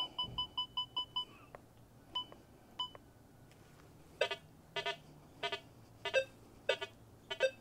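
Rutus Versa metal detector: a quick run of menu key beeps at the start, two more single beeps, then from about four seconds in a row of short chirps about every two-thirds of a second. These are its target tones over the test targets with the iron filter removed, a little chirp.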